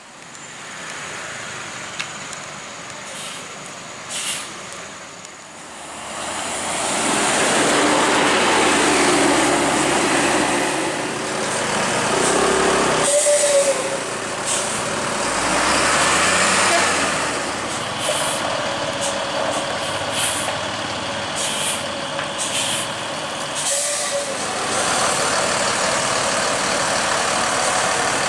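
Heavy vehicle engine running and labouring at low speed, with its pitch rising and falling, and air-brake hisses. It grows much louder about six seconds in.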